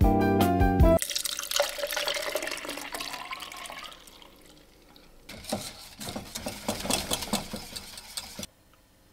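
Piano music ends about a second in. A liquid is then poured from a saucepan through a sieve into a plastic jug. After a short lull, a whisk scrapes rapidly around a stainless-steel saucepan, stopping suddenly near the end.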